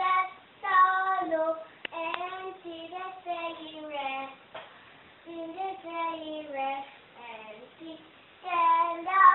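A young girl singing unaccompanied, in short phrases of held notes with brief pauses between them.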